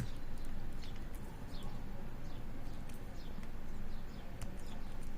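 Faint, scattered light clicks and scrapes of a half-diamond pick working the pin tumblers of a disc brake lock held under a tension wrench.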